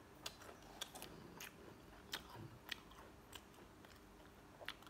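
Faint, sharp crunches of Mr. Potato Ghost Pepper potato chips being chewed, a short crack every half second to a second.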